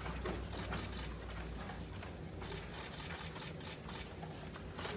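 Children sparring in padded gloves and foot gear on foam floor mats: irregular soft thuds and scuffs of stepping feet and padded strikes.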